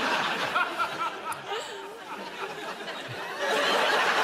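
Studio audience and panel laughing together. The laughter dies down partway through, then swells again near the end.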